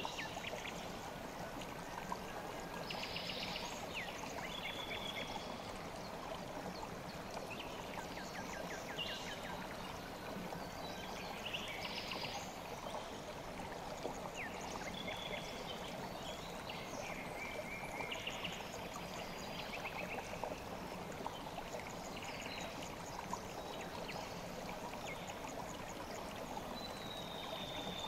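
The Kükü river flowing steadily over its bed, with short high chirps coming and going above the rush of water.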